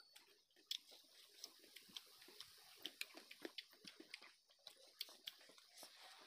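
Faint eating sounds close to the microphone: wet chewing and lip smacks, an irregular run of small clicks several times a second.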